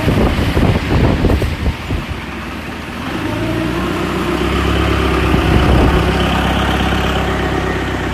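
A motor vehicle engine running steadily, growing a little louder about three seconds in, with irregular knocks and clatter during the first two seconds.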